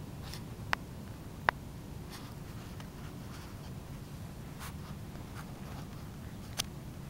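Three sharp clicks, the loudest about a second and a half in and the last near the end, with faint scratchy ticks between them over a steady low hum.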